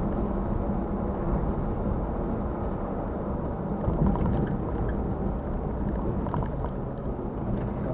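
Mitsubishi Pajero being driven, heard from inside the cabin: a steady low rumble of engine and tyre noise.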